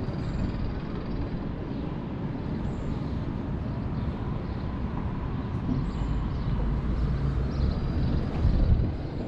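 City street traffic noise: a steady rumble of passing vehicles, swelling about six seconds in as a heavier vehicle goes by and easing off just before the end.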